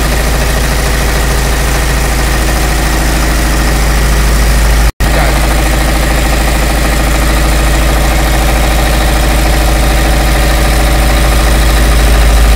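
Four-stroke diesel test-bed engine running steadily just after being started. Its sound drops out for an instant about five seconds in.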